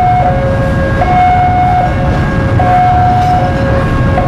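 Level-crossing warning alarm sounding two notes in turn, a higher and a lower one, each held just under a second, over the low rumble of a train passing close by.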